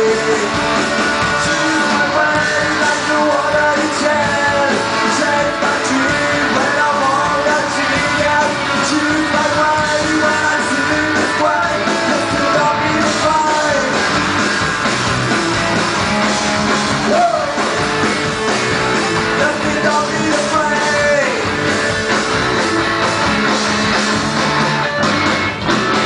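A live rock band playing a song, with a voice singing over the instruments.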